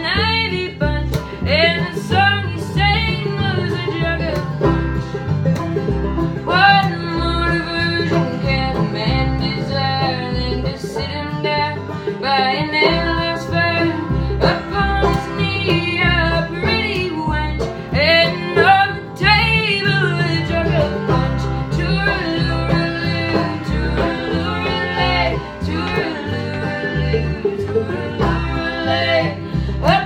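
Bluegrass-style string band playing: banjo, acoustic guitar and bass in a steady rhythm, with a voice singing the melody over them.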